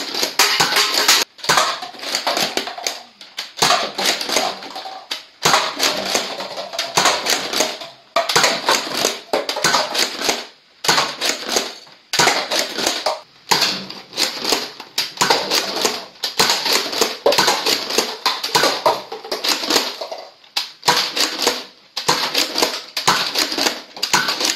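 Buzz Bee Air Warriors Thermal Hunter foam-dart blaster being worked and fired again and again, with clacking plastic mechanism sounds in bursts every second or two. Paper cups clatter as the darts knock them down.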